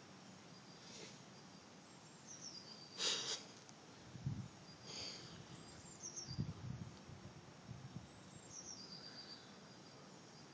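A bird calling every few seconds, each call a short falling note followed by a quick run of high notes. About three seconds in comes a brief, louder burst of noise, and a few low bumps follow.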